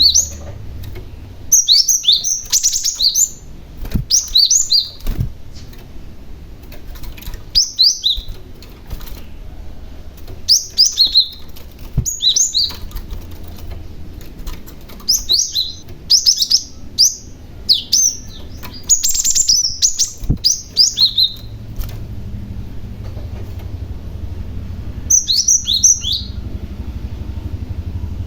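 Young cinereous tit (gelatik batu) singing in bursts of quick, sharp, high falling notes, each phrase about a second long with pauses of a few seconds between. A low steady hum runs underneath, with a few dull low thumps.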